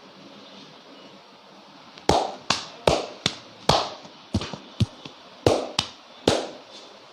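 Hands striking the head and body in an Indian barber's percussive massage: about eleven sharp slaps and claps in an irregular run, starting about two seconds in.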